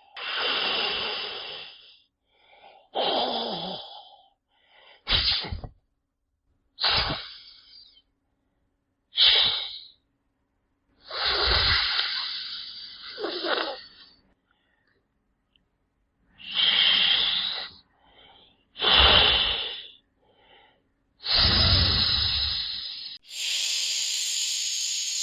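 Snake hissing: about nine separate breathy hisses of one to three seconds each, with short silences between them. Near the end a steadier, brighter hiss begins.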